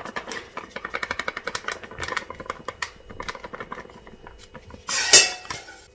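Plastic packet of maida (refined flour) crinkling and ticking in the hand as flour is poured from it into a steel plate: a rapid run of small ticks, then a louder rustle of the packet about five seconds in.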